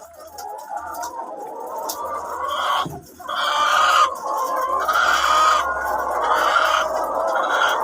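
A flock of ready-to-lay pullets clucking and calling all together, growing louder, with a brief lull about three seconds in.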